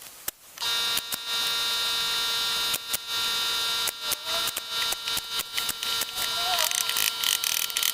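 Small electric power tool motor running at a steady speed, a whining hum with many scattered clicks over it. It starts about half a second in.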